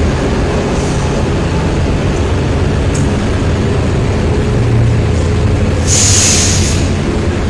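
Steady traffic noise at a motorway toll plaza: vehicles idling and passing. There is a click about three seconds in and a sharp hiss lasting under a second about six seconds in.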